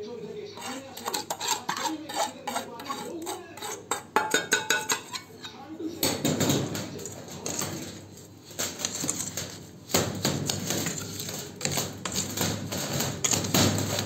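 Steel bowl and plate clinking and scraping as a powder mix is stirred by hand in the bowl, with many quick knocks and a steady scraping rustle in the second half.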